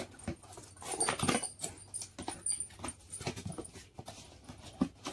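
A mixer grinder's cardboard box and packaging being opened and handled by hand: irregular rustles and clicks.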